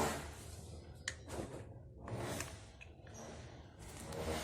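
Light clicks and handling noises of a small cooking pot and its lid being set on the stove and covered: two short clicks about a second in, then a soft rustle.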